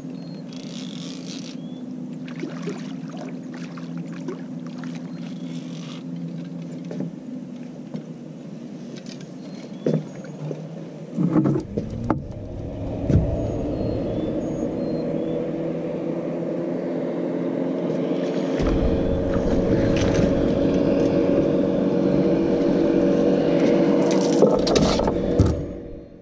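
An engine running steadily, getting louder and higher-pitched from about halfway through, with a few knocks and scrapes a little before that.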